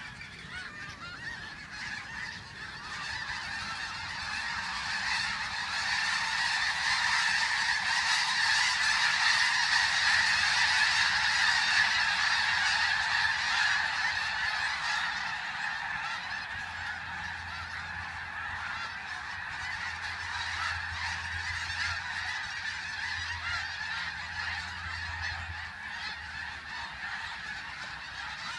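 A large flock of snow geese calling together in a dense, continuous chorus of honks. The chorus swells to its loudest about ten seconds in, as much of the flock takes to the air, then eases off.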